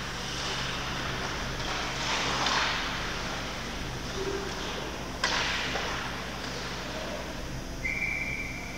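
Game ambience with background crowd or court noise, broken by a single sharp crack about five seconds in. Near the end comes a steady, even whistle-like tone that holds for over a second.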